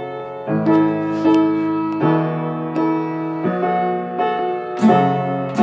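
Grand piano playing held chords that change about every second and a half, with acoustic guitar strums coming in more strongly near the end.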